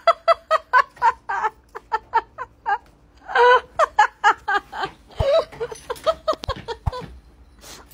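A person laughing hard in rapid short bursts, several a second, with a few low thumps in the second half.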